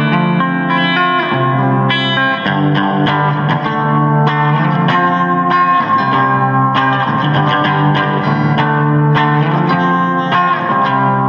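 Guitar music: held notes and chords with rich overtones, changing every second or so, playing on without a break.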